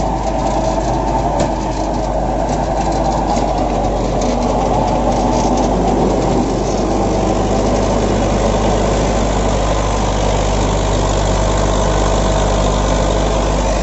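HMT 5911 tractor's diesel engine running steadily under heavy load, smoking hard as it pulls a super seeder through paddy stubble.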